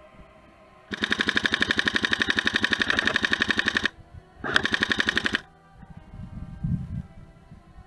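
Airsoft rifle firing on full auto: a rapid, even stream of shots in one long burst of about three seconds, then a short burst of about a second.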